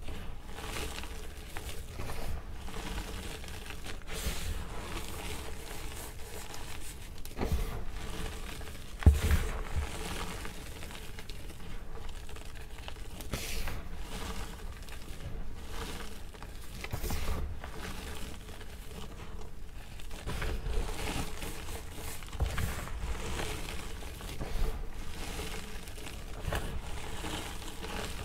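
Gloved hands squeezing and crumbling powdery gym chalk: a steady crunching and crackling of chalk breaking apart and powder shifting, with a louder crunch about nine seconds in.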